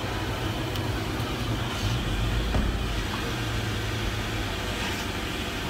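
Steady low engine rumble of an idling vehicle, heard from inside a pickup truck's cabin, swelling briefly about two seconds in, with a few faint clicks.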